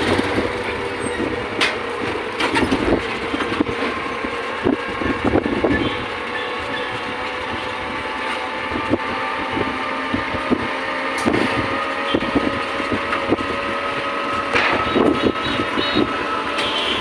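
Steady running noise of a vehicle, with a few faint steady tones and scattered short clicks.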